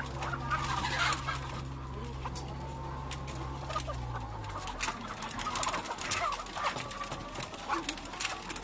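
Laying hens clucking and calling in distress as they are forced into the low drawers of a broiler transport container, amid sharp knocks and clatter from the drawers and crates. A low steady machine hum underneath stops about halfway through.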